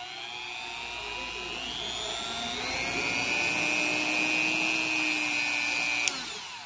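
Rotary tool driving a flexible shaft, running free with no load: a high whine that climbs in pitch as it spins up, then holds steady. About six seconds in there is a click, and the whine winds down.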